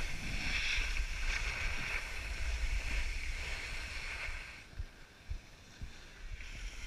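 Skis hissing and scraping over packed snow during a downhill run, with wind rumbling on the microphone. The sound drops away about two-thirds of the way through, leaving a few soft knocks.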